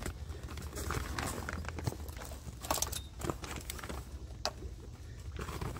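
Rustling and irregular knocks of kayak seats and a pad being stuffed into a heavy plastic carry bag, over a steady low hum.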